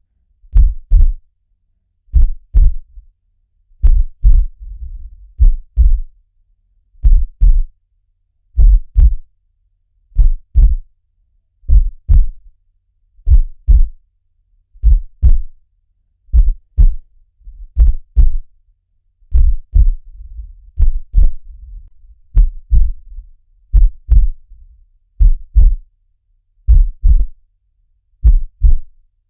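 Heartbeat in a slow, even lub-dub rhythm: pairs of deep thumps, about one pair every second and a half.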